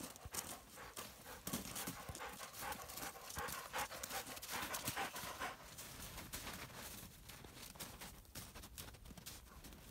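A dog panting hard from the effort of wading through deep snow, with crunching footsteps in the snow. The panting and steps are loudest in the first half and die down after about six seconds.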